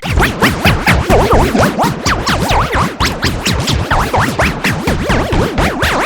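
Loud, heavily effect-processed cartoon audio that sounds like electronic music: many fast up-and-down pitch sweeps overlap, chopped into rapid pulses several times a second.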